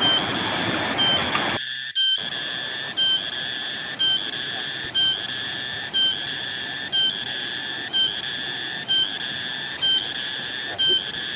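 A high, steady whistle-like tone with overtones, repeating in pulses about once a second with a brief break between them, running unchanged over the edits like an added sound track. For the first couple of seconds the rush of a fast river runs underneath it.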